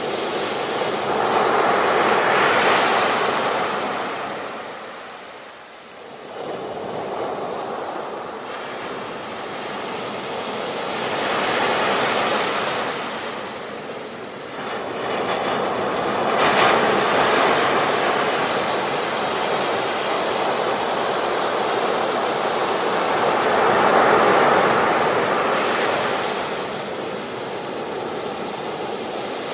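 Ocean surf breaking on a beach and washing up the sand, the rush of water swelling and easing about four times.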